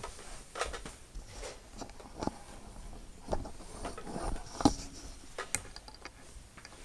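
Scattered light knocks and clicks at irregular intervals, the sharpest about four and a half seconds in.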